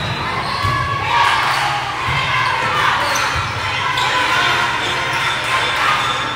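Volleyball match in a gym: a steady murmur of spectators' voices echoing in the large hall, with a few low thuds of the ball being struck or bouncing on the court.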